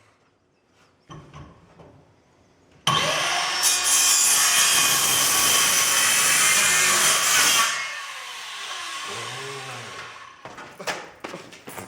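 Power saw cutting through wood: it starts abruptly about three seconds in, runs loudly and steadily for about five seconds, then drops to a quieter sound, followed by a few knocks near the end.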